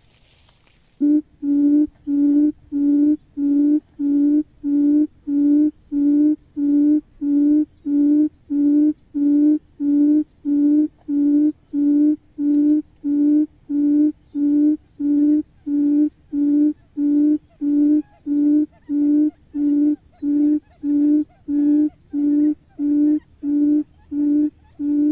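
Low, even hooting call of a barred buttonquail, one note repeated about one and a half times a second, starting about a second in. It is the lure call that draws buttonquail to a trap.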